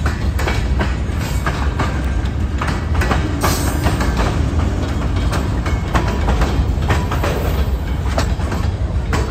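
Freight cars of a Norfolk Southern train rolling past close by: a steady low rumble with a run of sharp clicks as the wheels pass over the rail joints.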